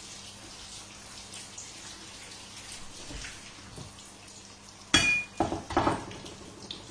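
Egg-battered zucchini slices frying in a pan of oil, a faint steady crackle. About five seconds in, kitchenware clinks sharply with a brief ring, followed by a few quicker knocks as dishes are handled on the counter.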